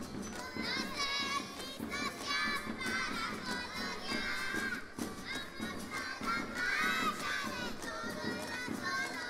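A group of young children singing loudly together, many high voices at once, with an acoustic guitar being strummed underneath.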